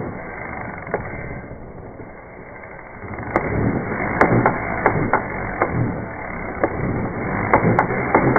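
Drill-driven BGS 1738 valve lapping tool turning an engine valve back and forth against its seat: steady mechanical noise with irregular sharp clicks and knocks. It eases off for a moment about two seconds in, then picks up again with more frequent clicks.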